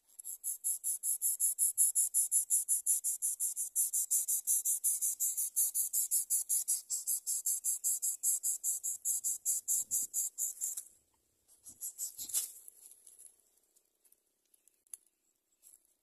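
Greater coucal nestlings begging: rapid, high-pitched pulsed calling at about five pulses a second that stops suddenly about eleven seconds in. A short burst of noise follows about a second later.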